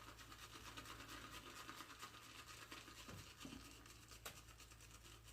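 Faint, dry scratching of an Omega pure boar-bristle shaving brush worked into Erasmic shave cream in a scuttle, the brush still fairly dry before water is added. One sharp tick about four seconds in.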